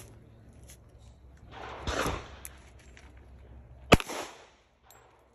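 .22 Magnum handgun fired: a single sharp crack about four seconds in, with a short ring after it. A duller gunshot report comes just before two seconds in.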